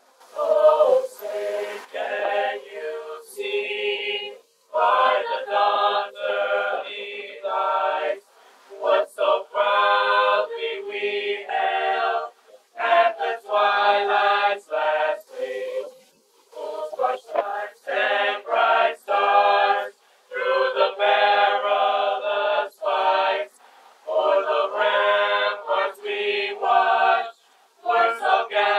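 A choir singing in phrases of a few seconds each, separated by short breaks.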